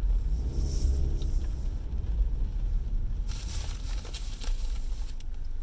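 Steady low rumble of a car's engine and road noise, heard from inside the cabin while driving, with a brief hissing rush a little past three seconds in.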